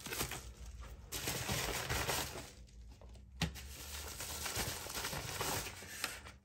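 A padded plastic mailer being handled and rustled, with a single sharp click about three and a half seconds in.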